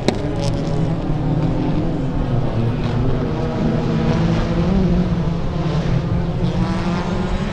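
Rallycross car engine running hard at high revs, its note wavering up and down as the car accelerates through the corners, with a sharp crack right at the start.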